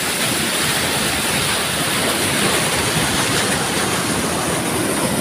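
Irrigation canal water rushing fast in a strong current, a steady, even hiss with no breaks.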